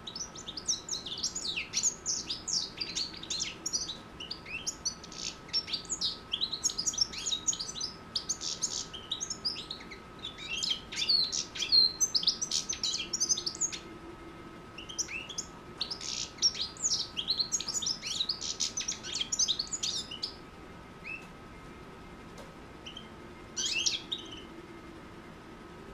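Six-month-old European goldfinch singing: a fast twittering run of high chirps and trills that goes on for about twenty seconds, breaks off, and returns as one short burst near the end. A faint steady whine sits underneath.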